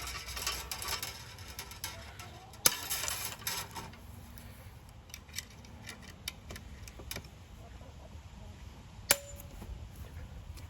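Scattered clicks, knocks and scraping of fence wire and staples being handled and worked at a wooden post, with a sharp knock about two and a half seconds in and a ringing metal clink about nine seconds in.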